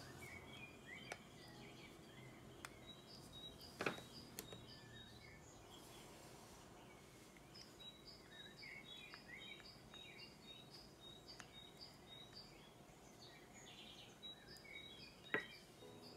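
Near silence with faint chirping of small birds, and two short knocks, about four seconds in and near the end.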